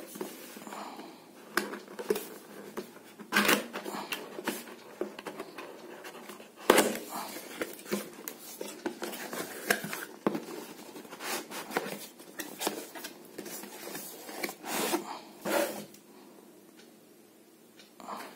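A cardboard box being opened by hand: irregular rustling, scraping and tapping of the cardboard flaps and packaging, with one sharper knock about a third of the way in. It goes quieter near the end.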